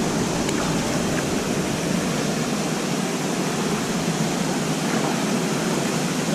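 Steady rushing of river water in a rock pool, with a small waterfall pouring into it and the current moving past the rock.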